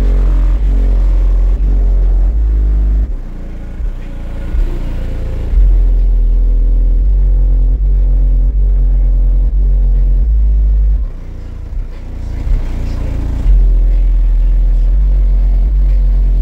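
Car audio subwoofers in a pickup truck, plausibly Skar subs, playing bass-heavy music very loud, with deep sustained bass notes. The bass drops out twice, about three seconds in and about eleven seconds in, and slams back in each time.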